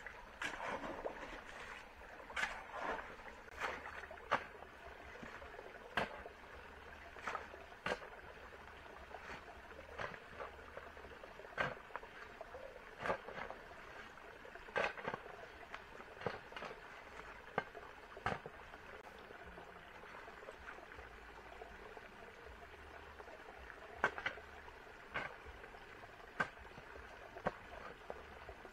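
Irregular sharp knocks and taps, roughly one a second, over a steady faint hiss.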